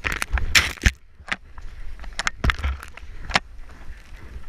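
Powder snow spraying over the camera in a loud rush for about the first second, then scattered crunches and scrapes of riding through deep powder, with wind rumbling on the microphone.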